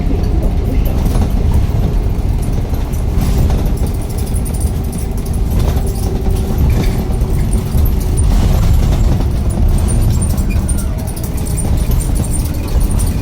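A motor vehicle engine running with a steady low rumble, among street traffic.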